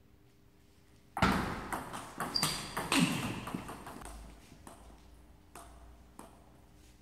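Table tennis rally: the ball clicking sharply off the paddles and the table, a quick run of hits starting about a second in and thinning out to a few scattered clicks. A steady low hum runs underneath.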